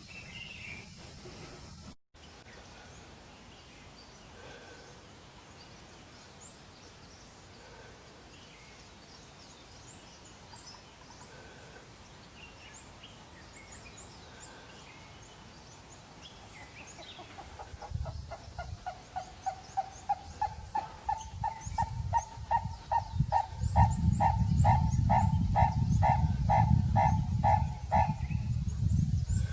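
Purple-crested turaco calling: a long series of evenly repeated pitched notes, about two a second, starting a little past halfway and stopping shortly before the end, over a low rumble. Before the series, only faint high chirps of small birds.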